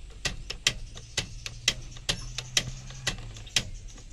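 Rapid, regular mechanical ticking, about four sharp clicks a second, over a low steady hum.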